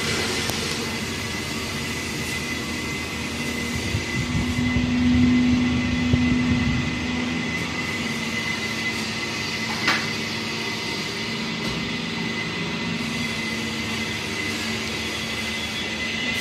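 Electric motor of a vertical clay mixer running steadily, turning its stirrer shaft and paddle in a stainless steel drum: a continuous mechanical hum with a steady low tone and a thin high whine. It swells louder for a few seconds a little after the start, and there is one sharp click near ten seconds.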